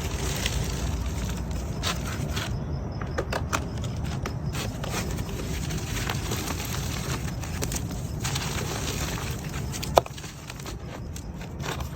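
Dried red mud and concrete crumbling with a steady crackle and scattered small clicks. There is a sharp snap about ten seconds in, after which it goes a little quieter.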